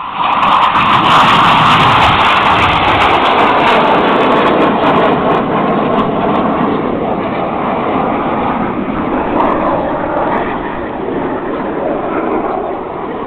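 Jet roar from a formation of display jets passing low overhead: it rises sharply at the start, is loudest over the first few seconds and then slowly fades away.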